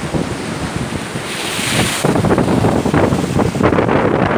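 Stormy Baltic Sea waves washing in over the shore, with a high hissing wash about a second and a half in. Wind buffeting the microphone grows louder from about two seconds in.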